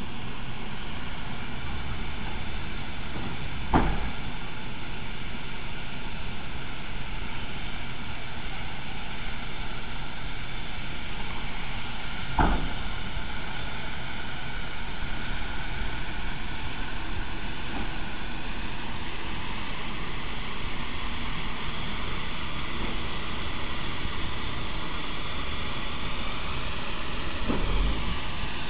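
Steam locomotive 1309, a 2-6-6-2 Mallet, standing under steam, giving a steady hiss and hum, broken by three sharp knocks: a few seconds in, about halfway, and near the end.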